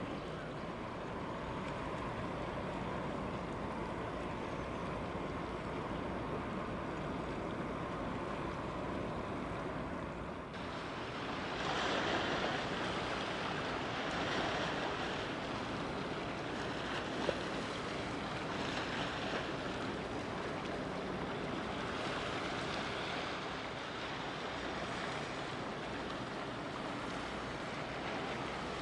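Waterside ambience: steady wind rushing on the microphone and waves washing, growing louder and brighter about ten seconds in, with one brief click a little past halfway.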